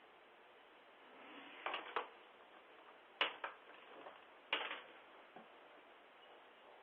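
A few sharp knocks or clicks in uneven groups, two, two, then one, over a steady hiss. They come through a video doorbell's narrow-band microphone.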